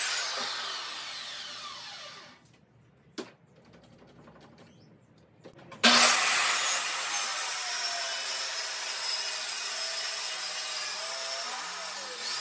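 Corded circular saw spinning down after a cut, fading over about two seconds. A single knock follows a little after three seconds in. Then the saw starts again at about six seconds and rips steadily through a plywood sheet to the end.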